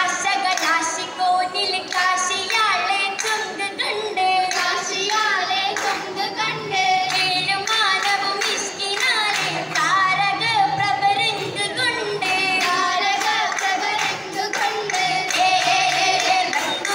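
Oppana: voices singing a Mappila song with rhythmic hand-clapping.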